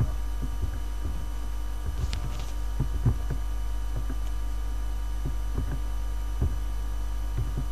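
Steady low electrical mains hum from the recording chain, with scattered soft clicks and thumps.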